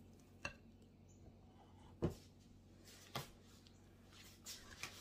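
Silicone spatula scooping a soft butter-and-sugar filling and spreading it over a graham cracker crust in a foil pan: a few faint knocks, the sharpest about two seconds in, then soft scraping near the end.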